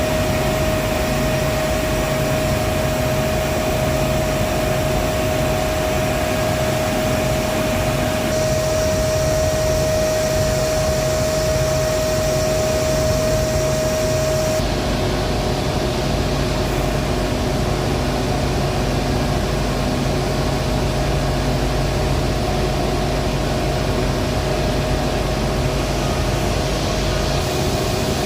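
Steady industrial machinery noise: a continuous hum and hiss with a clear high steady tone that stops about halfway through, where the sound's character changes abruptly.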